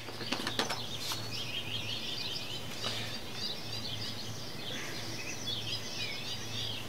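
Birds chirping steadily in the background over a low, steady hum, with a few faint taps in the first few seconds.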